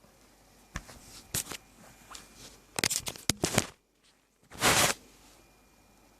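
Handling noises from the flashlight and its battery being worked by hand: several sharp clicks and short scrapes, then one longer rustling scrape about halfway through, the loudest sound.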